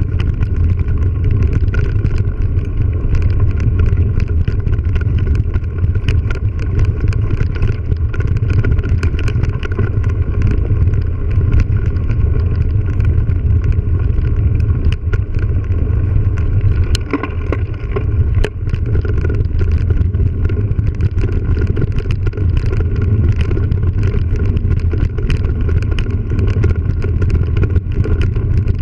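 Steady wind rumble on a helmet or handlebar camera microphone while riding a mountain bike over rough dirt, with tyre noise and a constant patter of small clicks and rattles from the bike. A couple of sharper clacks come just past the middle.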